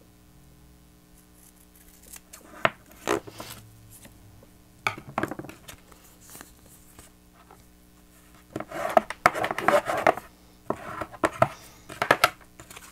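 Paper and cardstock craft pieces being handled and pressed down on a work table: irregular taps, rustles and rubbing, busiest about two-thirds of the way through.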